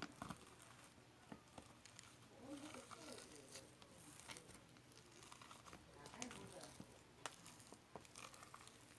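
Quiet handling noises: scattered light clicks and crinkling, with a faint voice murmuring now and then.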